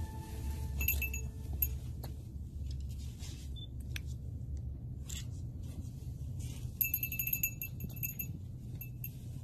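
Low rumble of wind on the microphone, with brief metallic jingling once about a second in and again for about a second near the end, and a few soft clicks.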